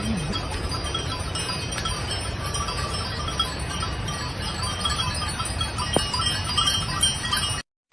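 Steady outdoor ambience: a continuous rushing noise with faint, scattered tinkling tones and a brief low wavering animal-like call at the start, cutting off abruptly near the end.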